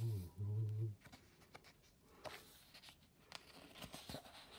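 A low voice hums two short notes in the first second. After that come only faint rustles and light ticks of sketchbook paper being handled.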